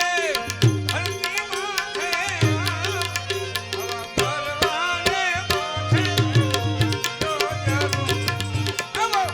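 Instrumental interlude of Indian devotional folk music: tabla strokes over a melodic lead instrument playing an ornamented line that bends up and down, with repeated deep bass notes.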